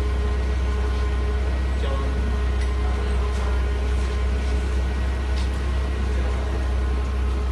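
Forklift engine idling steadily: a deep low drone with a thin steady hum above it, and a few light clicks.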